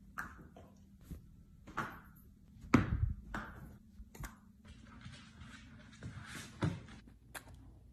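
Tennis balls bouncing off a sofa and a hard floor: a few scattered soft knocks and thumps, the loudest about three seconds in.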